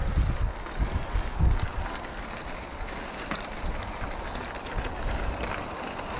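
Mountain bike rolling over a rocky trail: tyre noise on rock and grit with scattered clicks and rattles, and wind rumbling on the microphone, strongest in the first second or so.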